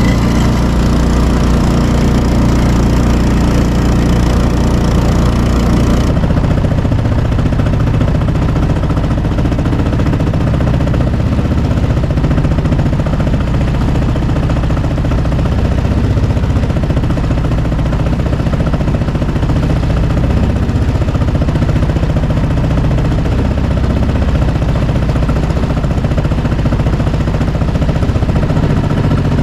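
Small gas engine of a boat's Swamp Runner motor kit running steadily while the boat is under way. About six seconds in, the sound turns duller and loses its hiss.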